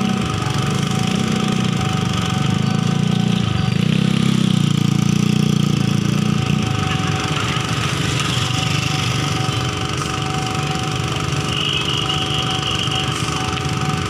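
Diesel-electric locomotive's engine running with a steady low rumble, heavier for the first six or so seconds and easing a little after that.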